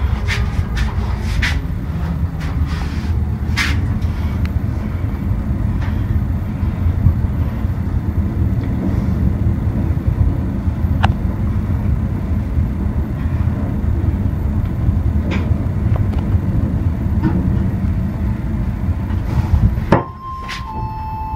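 Small V-Star passenger elevator car travelling upward: a steady low rumble heard from inside the cabin, with a few clicks near the start. Near the end the rumble drops away as the car stops, and an electronic arrival chime sounds as two steady tones, the second slightly lower.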